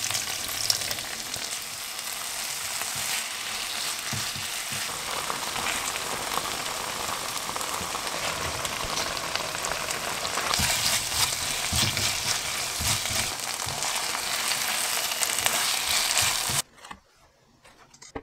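Meat and red-pepper-paste sauce sizzling in a non-stick frying pan after water is poured in, a steady hiss that grows louder about ten seconds in. It cuts off suddenly near the end.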